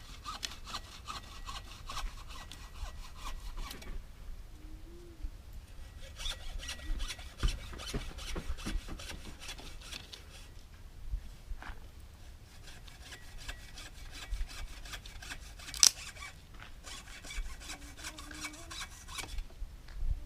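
A blade sawing back and forth through a wooden stick in quick, even strokes. It pauses a few seconds in and resumes, with a single sharp click about sixteen seconds in.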